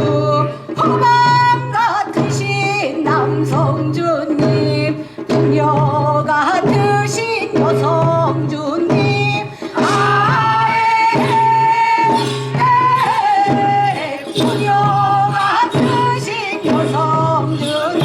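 Korean folk song (minyo) sung by a solo voice with sliding, ornamented pitch, over a steady drum beat from samulnori percussion.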